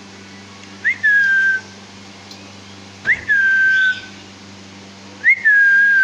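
Whistling: three identical phrases about two seconds apart, each a quick rising chirp followed by a long, steady, slightly falling note.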